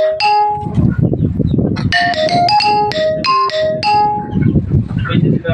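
Background music: a short, bright, marimba-like melody that is played through and then repeated, over a low rumbling layer.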